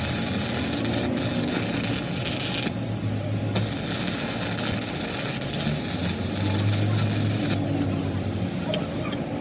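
Continuous abrasive scraping and rubbing on the pickaxe, with a low hum underneath. The scraping breaks off briefly about three seconds in and again near the end.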